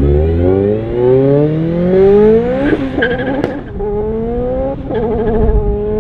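Honda Civic SiR's VTEC four-cylinder accelerating hard from a standing start. The engine note climbs steadily in pitch for nearly three seconds, then drops briefly at quick upshifts and climbs again, with a sharp crack at one of the shifts.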